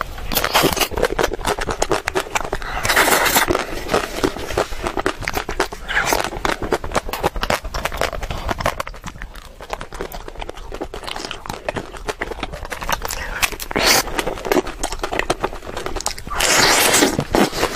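Close-miked chewing and crunching of chocolate: a dense stream of small crackles and clicks, with louder crunching bursts every few seconds, the longest near the end.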